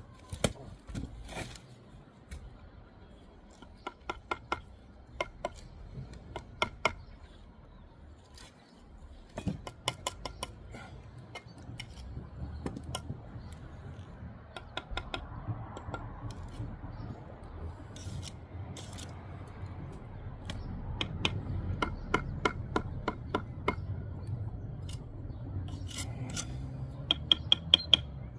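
Bricklaying work: a trowel scraping and working mortar, with clusters of sharp taps and clicks on brick between rasping scrapes.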